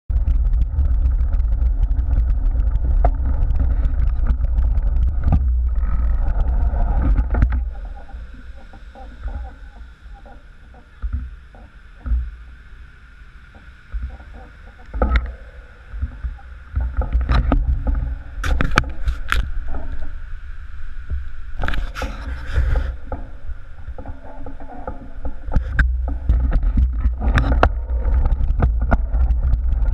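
A Cannondale Gemini mountain bike ridden over gravel, heard from a frame-mounted camera: low wind rumble on the microphone, gravel crunch, and rattling knocks from the bike. About 8 seconds in it drops to a quieter stretch of scattered clicks while the bike is halted. A run of sharp knocks follows, and the riding rumble returns in the last few seconds.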